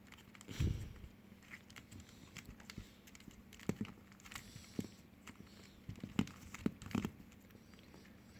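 Quiet handling of a Rubik's cube: a handful of scattered sharp clicks and knocks as it is turned and handled in the hands, with faint rustling between.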